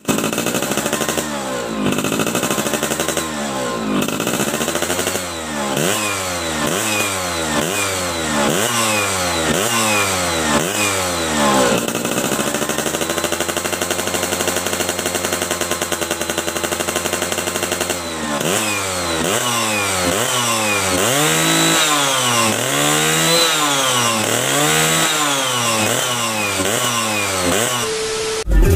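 Suzuki F1ZR two-stroke engine being revved in repeated blips about once a second, then held at a steady rev for several seconds, then blipped again. Its air filter box is drilled with extra holes for more air, which the owner says gives it a hoarse, growling note.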